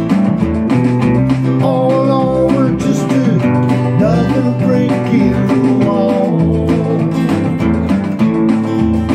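Steel-string acoustic guitar strummed in a country-style arrangement over a backing track with a pulsing bass, with a bending melody line about two to four seconds in.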